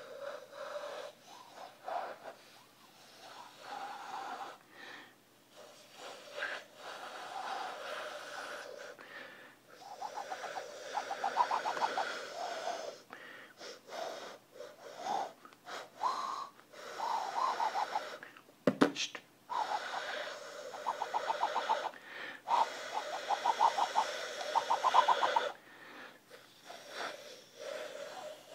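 Breathy, hooting whistle tones blown through cupped hands like a hand flute, shifting up and down in pitch, with stretches of fast warbling. A sharp click about two-thirds through.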